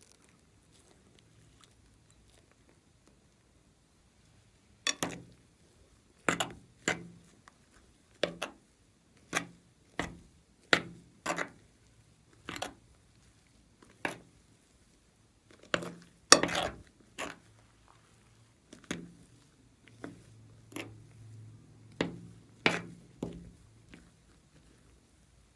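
Slime being handled, giving a run of sharp pops and clicks at about one a second, irregular, starting about five seconds in.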